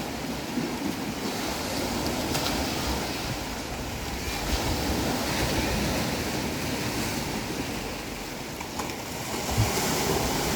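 Ocean surf: waves breaking and washing in continuously, the loudness swelling and easing gently.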